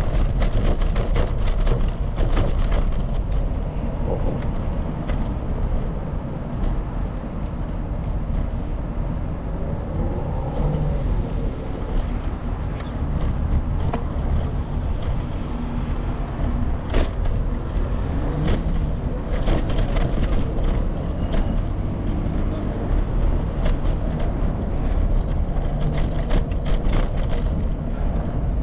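Ride noise from a bicycle rolling over city streets: a steady rumble of wind on the microphone and tyre noise, with scattered sharp clicks and rattles from bumps. Vehicle traffic is in the background.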